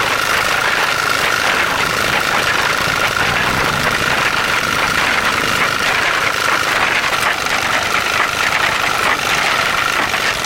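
Restored concrete mixer's small engine running steadily at idle, with a steady high whine over the engine noise.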